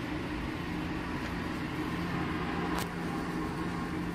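A steady low mechanical hum, with one short click about three seconds in.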